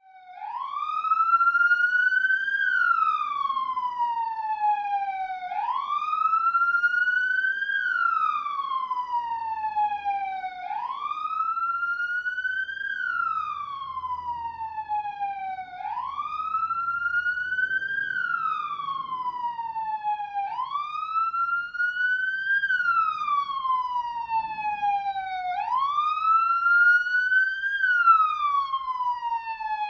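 Police car siren in wail mode: one tone sweeping up and then slowly back down in pitch, about once every five seconds, six times over.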